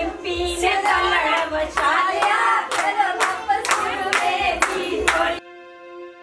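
Group of women singing a wedding folk song together, clapping in time about twice a second. A little after five seconds in, the singing and clapping stop abruptly and a quieter, held music chord takes over.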